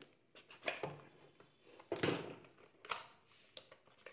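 Smartphone box's white cardboard inner tray and lid being handled and pulled apart: a few short scrapes, taps and rustles, the loudest about two seconds in and another sharp one about a second later.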